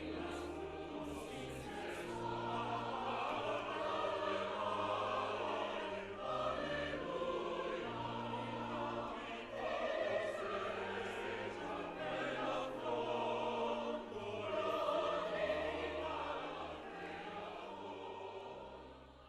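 Background music of a choir singing held notes over a low accompaniment, fading out near the end.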